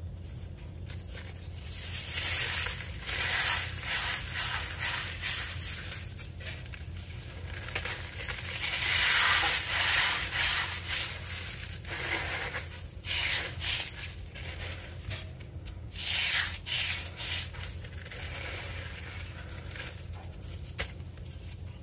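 Molded cornstarch pieces crunching and crumbling as they are broken and squeezed by hand, in repeated bursts of dry, gritty crunching with short pauses between.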